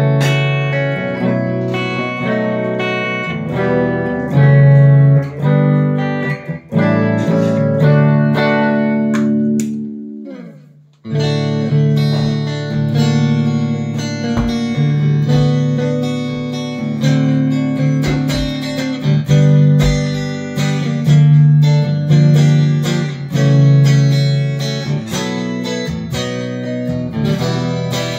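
Harley Benton Fusion II electric guitar with alnico pickups being played: ringing chords and single notes. About ten seconds in, the pitch slides down and dies away almost to silence before the playing starts again.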